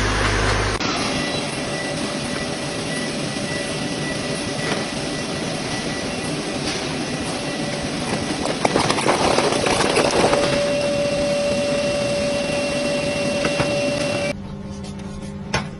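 Factory machinery running as a stretch-hood machine pulls plastic film down over a pallet of sacks: a steady noisy hum with a thin whine, joined by a lower whine about ten seconds in. The sound drops sharply to a quieter hiss near the end.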